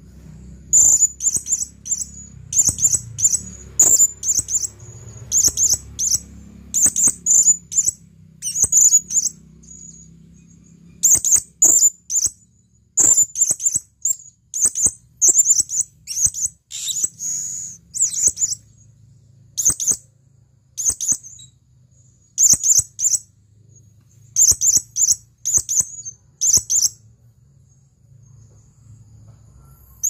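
Male blue-crowned hanging parrot (serindit) calling: clusters of rapid, shrill, high-pitched chirps about once a second, falling silent near the end.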